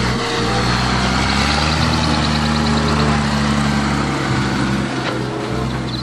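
Case IH tractor's diesel engine running steadily under load as it pulls a Case IH large square baler through a field.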